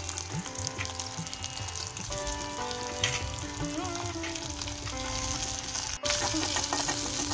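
Shallots, garlic, ginger and fennel seeds frying in oil in a steel pan, with a steady sizzle, over background instrumental music.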